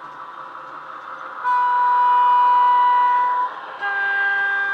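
DCC sound decoder (Loksound 5 micro) playing a Class 15 diesel locomotive through the model's small speaker. The engine is running, then about one and a half seconds in the two-tone horn sounds: a high note held for about two seconds, a brief break, then a lower note.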